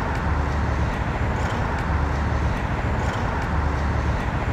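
Steady outdoor street noise of road traffic, with a low rumble that swells and fades about every two seconds.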